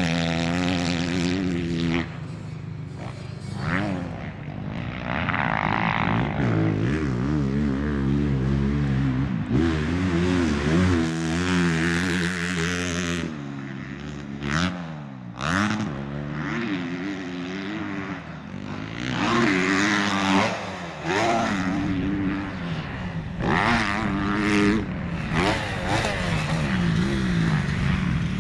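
Motocross dirt bike engines revving up and down over and over, throttle opening and closing as the bikes ride the track, at times more than one bike running at once.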